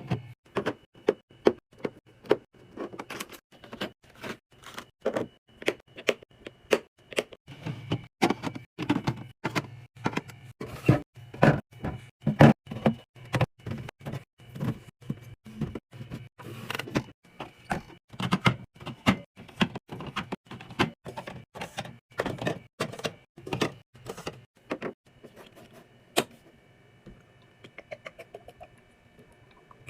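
Drinks and packaged snacks being handled and set into a mini fridge: a dense, irregular run of clicks, taps and knocks that thins out to a few faint ticks near the end.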